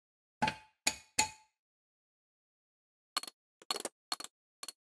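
Steel hand tools clinking against the axle nut and hub while the axle nut is worked loose: three sharp ringing clanks in the first second and a half, then a quicker, irregular run of lighter clinks from about three seconds in.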